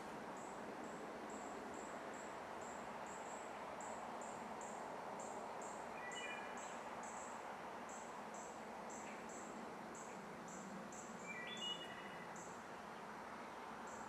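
Outdoor nature ambience: a high, even chirping that repeats about twice a second over a steady hiss, with two brief birdcalls of a few quick notes, about six and eleven seconds in.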